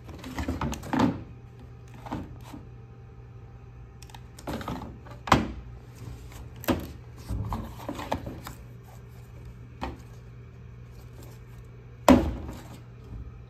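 Salvaged Tesla parts (orange high-voltage cables, a plastic tail light and a plastic control module) being picked up, shifted and set down on a bench: a string of knocks and clatters, the loudest just after a second in, at about five seconds and near the end, over a steady low hum.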